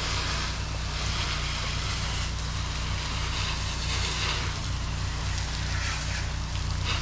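Gas-engine pressure washer running steadily, with the hiss of its high-pressure water spray swelling and easing as the wand sweeps across a surface.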